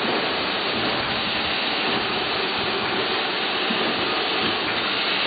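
Steady, even hissing run of a tapping machine punching and feeding perforated metal strip, with no separate strokes heard.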